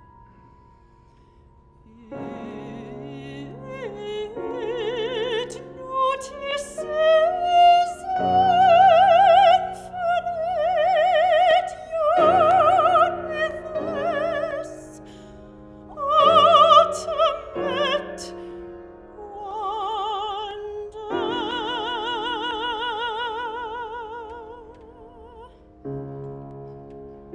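Soprano singing a classical art song with vibrato, holding long notes over grand piano accompaniment. The voice enters about two seconds in after a soft piano note and stops shortly before the end, leaving the piano playing.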